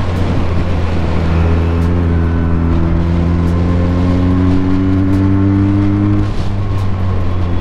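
Benelli TNT 300's parallel-twin engine running under steady throttle while riding, its pitch rising slowly, then dipping abruptly about six seconds in.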